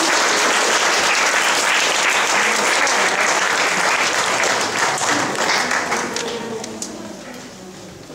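Audience applauding, a dense, steady clapping that dies away over the last two seconds or so.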